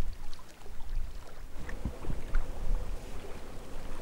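Wind buffeting the microphone, an uneven low rumble, with a faint steady hum coming in a little before halfway.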